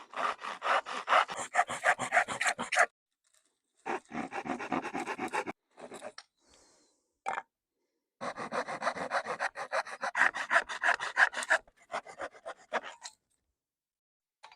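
Handsaw cutting through a pallet-wood board to notch it: quick back-and-forth rasping strokes, about five a second, in four spells with short pauses between.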